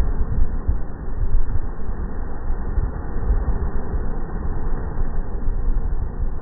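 Off-road SUV's engine running as it drives slowly through a muddy puddle, heard from a distance under an uneven low rumble.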